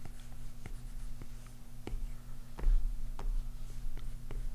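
Apple Pencil tip tapping on the iPad Pro's glass screen in short drawing strokes: an irregular series of light clicks, about two a second, over a steady low hum. A dull low thump comes a little past halfway.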